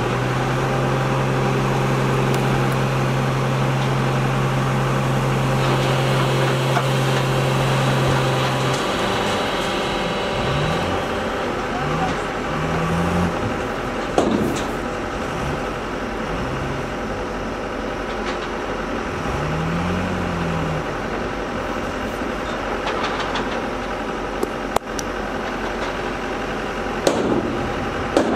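Heavy diesel excavator engines running. The engine note holds steady for the first several seconds, then rises and falls in pitch several times as the machines work. A few sharp knocks come about halfway through and near the end.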